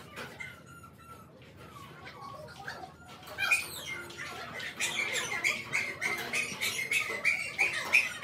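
Wood glue squirting and sputtering from a plastic squeeze bottle: rapid squeaky chirps that grow louder and denser about halfway through.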